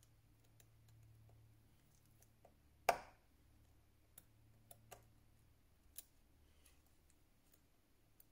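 Scattered small clicks and taps of repair tools and smartphone parts being handled, with one louder knock about three seconds in.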